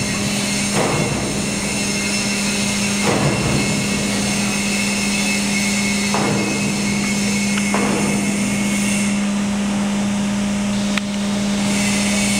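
Steady machine hum with a strong constant low tone, and a few faint knocks scattered through it.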